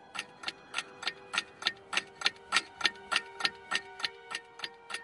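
Clock ticking steadily, about three ticks a second, growing louder over the first couple of seconds, over a faint held tone.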